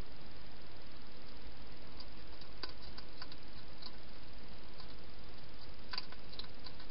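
Wild hedgehog eating from a bowl: scattered small clicks and crunches of chewing, over a steady hiss.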